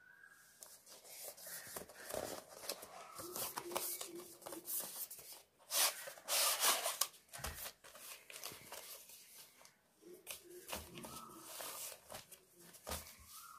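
Cardboard product box and plastic courier bag being handled: irregular rustling, scraping and crinkling as the box is opened and the cotton trunks are slid out, loudest about six seconds in.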